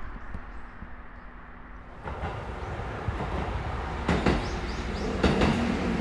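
JR East KiHa E130 diesel railcar passing over a level crossing: its running noise grows louder about two seconds in, with sharp wheel clacks over the rail joints twice near the end.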